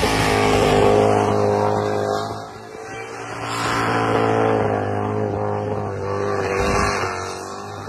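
Supercharged, fuel-injected engine of a Toyota Hilux burnout truck held at high revs during a burnout. The revs drop briefly about two and a half seconds in, climb again and ease off near the end.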